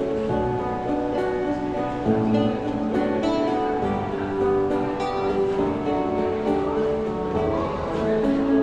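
A street musician playing an acoustic plucked-string instrument: a steady run of changing melody notes with a strum every couple of seconds.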